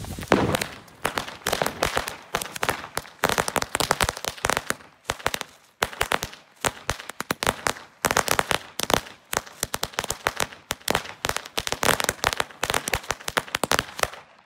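A belt of Nico Lady Cracker firecrackers going off in a rapid, irregular chain of small bangs that stops abruptly at the end.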